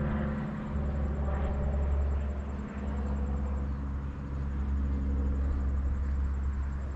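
A steady, low engine drone with a deep rumble underneath, with no sharp events.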